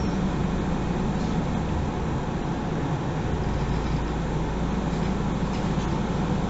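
Cabin of a MAN NG 363 Lion's City GL articulated city bus standing still, its six-cylinder diesel engine idling with a steady low hum.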